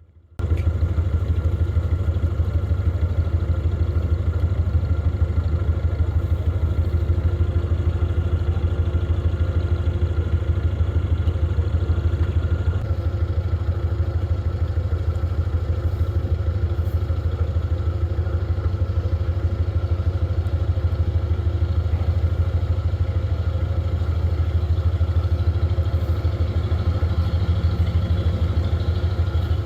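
Narrowboat's diesel engine running steadily at cruising speed, a deep even throb with a faint steady whine above it.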